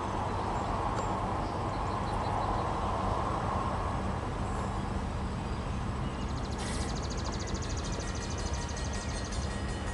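Diesel freight locomotive running in the distance as it approaches, a steady low engine hum. From about two-thirds of the way through, a fast, high-pitched ticking joins it.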